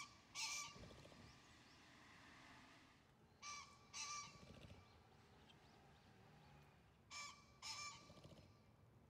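Male green pheasant crowing: three times, each a pair of loud, harsh notes about half a second apart, with a soft low whirr after each pair.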